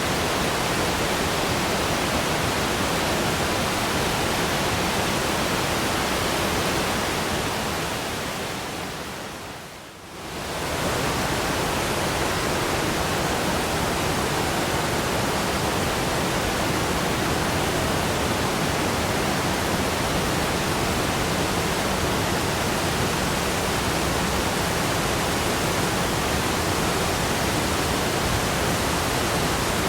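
Steady full rush of a waterfall's falling water, which fades down and swells back up about ten seconds in.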